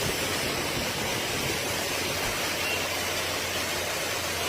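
Steady rush of rain, an even hiss with no breaks.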